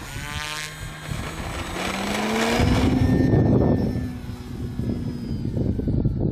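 Electric motor and propeller of an E-flite Carbon-Z Cessna 150 RC model plane in flight, a whine that climbs in pitch as the throttle comes up. It is loudest about three seconds in, then settles to a steadier, slightly falling tone.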